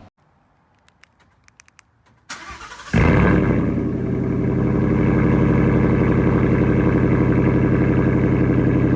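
Ford F-150's 5.0 L Coyote V8 started warm. A few faint clicks come first, then a brief crank, and the engine catches about three seconds in with a loud flare. It then settles into a steady idle.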